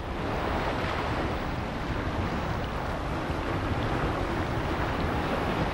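Seashore ambience: a steady rush of wind and surf.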